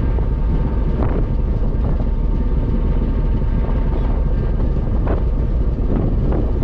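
Ferry engine running with a steady low rumble and a faint constant whine, with wind buffeting the microphone.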